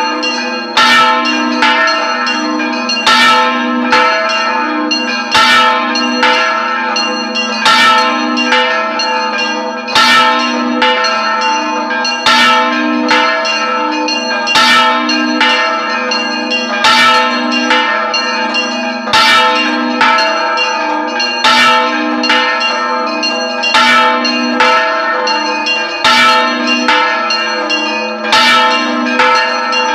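A single church bell with a counterweighted yoke swung full circle (rung "al vuelo"), its clapper striking about once a second, every other strike louder, over a continuous ringing hum. It is a festive peal announcing a feast day.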